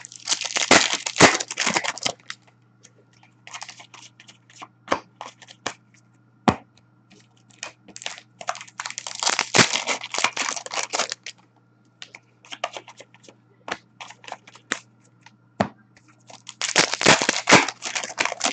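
Hockey card pack wrappers being torn open and crinkled, in three bursts of crackling: near the start, about nine seconds in, and near the end. Scattered sharp clicks come from cards being handled in between.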